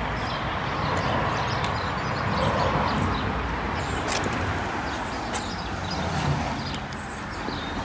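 Outdoor ambience: steady road-traffic noise with a few short high ticks.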